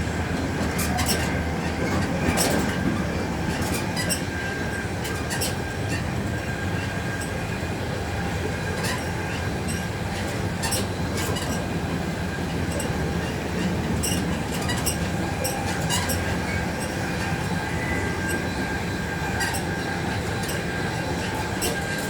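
Passenger train running on the rails, heard from inside a carriage: a steady rumble with irregular sharp clicks from the wheels and track, and a thin steady whine.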